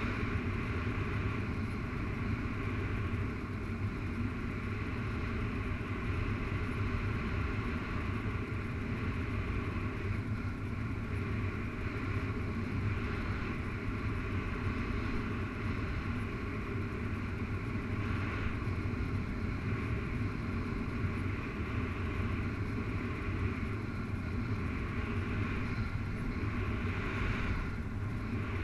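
Steady wind rush on the microphone from the airflow of paraglider flight: a continuous low rumble with a fainter hiss above it.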